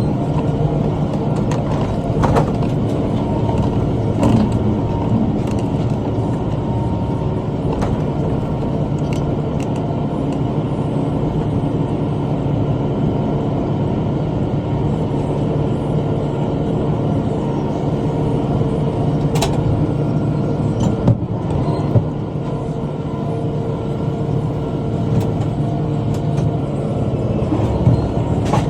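Tractor engine running steadily, driving a rotary cutter (bush hog), with occasional sharp ticks and knocks.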